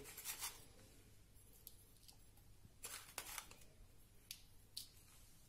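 Faint, scattered scrapes and clicks of a metal spoon scooping salt from a plastic tub and sprinkling it onto raw chicken in a bowl.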